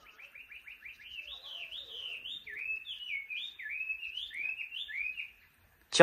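Chinese hwamei (laughingthrush) singing: a quick run of short rising notes, then a varied string of looping, slurred whistles that stops about five seconds in.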